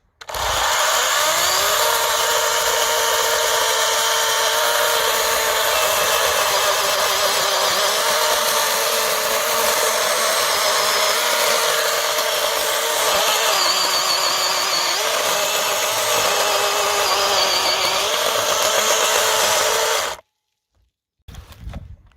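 Greenworks 40 V cordless chainsaw's electric motor spinning up with a rising whine, then running steadily, its pitch sagging briefly a few times, before it stops suddenly near the end.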